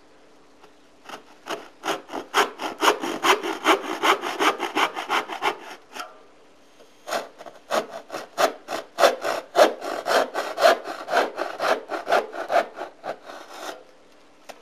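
Hand saw cutting a tenon in wood with quick back-and-forth strokes, about three to four a second. It comes in two runs with a pause of about a second near the middle.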